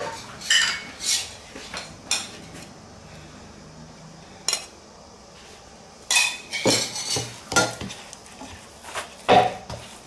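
Stainless steel mixing bowl clanking and scraping on the counter, with metallic clinks as dough is pressed and turned in it: scattered single clanks, then a busy cluster about six to eight seconds in and another near the end.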